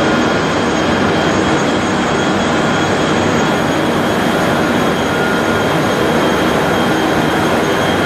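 A large 3200 mm printing/copy paper making machine running: a loud, steady industrial noise with several thin, high, steady whines over it.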